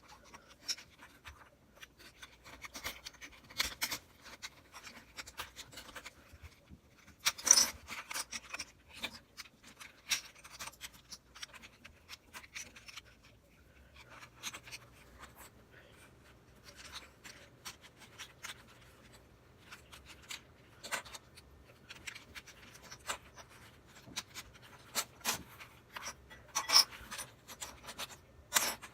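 Plastic Rubik's Cube pieces clicking, scraping and rubbing as the cube is handled, taken apart and reassembled. The sounds come in irregular bursts, with a few sharper clicks standing out, the loudest about seven seconds in and near the end.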